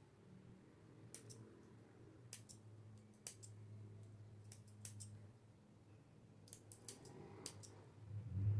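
Faint, scattered small clicks and rustles of a needle and cotton yarn as loose ends are woven into a crochet rug by hand, over a low steady hum that swells near the end.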